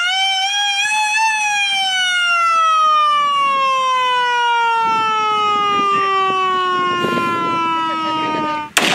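Warning siren wailing to signal an imminent ice-blasting explosion: its pitch rises for about a second, then slowly falls for the next seven seconds. It cuts off suddenly near the end, where a loud burst of noise begins.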